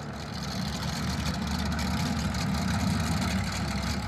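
Drag race car engine idling with a rough, dense low rumble, growing a little louder about half a second in.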